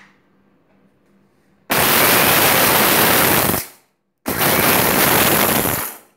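Indian mixer grinder (mixie) grinding dry-roasted toor dal, black pepper and dried red chillies into powder, run in two bursts of about two seconds each with a short break between.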